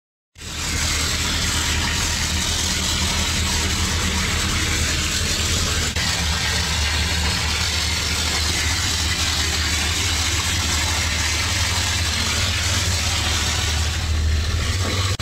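An air compressor engine running steadily under the hiss of a render spray gun blasting a lime spray coat onto a cob wall. It starts abruptly about half a second in.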